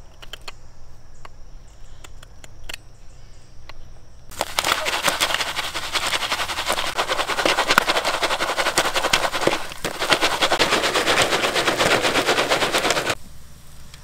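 Jiffy Pop popcorn popping inside its foil pan over a campfire: a few faint clicks at first, then about four seconds in a dense, very rapid popping that goes on for about nine seconds and cuts off abruptly near the end.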